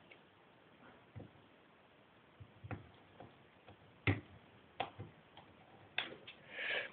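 Faint, irregular small clicks and taps as fingers handle the wires and block connectors of a homemade model train turntable, with a brief rustle near the end.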